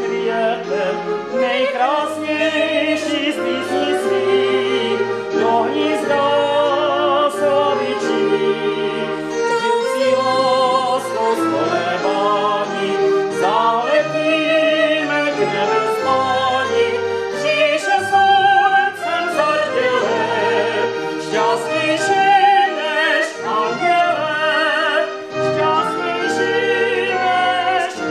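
Operetta duet: a woman and a man singing in an operatic style with vibrato.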